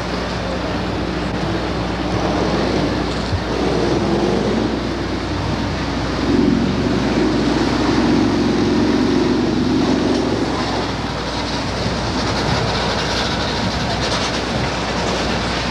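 Street traffic noise: a steady wash of vehicle sound with a low rumble that swells up through the middle and fades again, as of a heavy vehicle passing, over a steady low hum.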